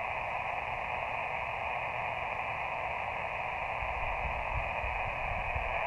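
Steady hiss of static from an Elecraft KX2 ham radio receiver while it listens on a frequency between calls. The band is noisy, with a high S7 noise floor. A faint low rumble comes in about four seconds in.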